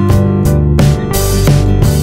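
Background music with a steady beat and plucked-string notes.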